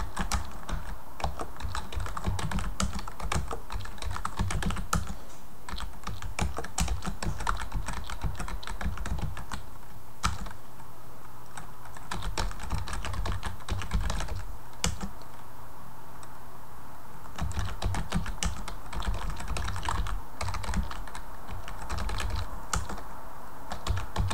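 Typing on a computer keyboard: quick runs of keystrokes, with a few pauses of a second or two in the middle.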